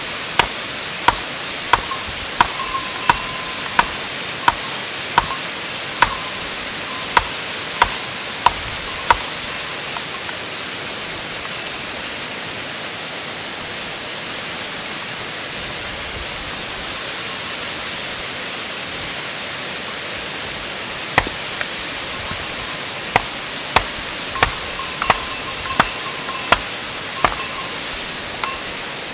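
Hammer striking rock: sharp, ringing taps about once a second while stones are split open to look for fossils, stopping for about ten seconds midway before a second run of taps. A steady rushing noise runs underneath.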